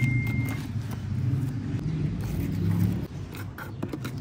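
A motor vehicle engine running with a steady low hum for about three seconds, then dropping away, followed by a few light clicks as the pressure washer's box is being opened.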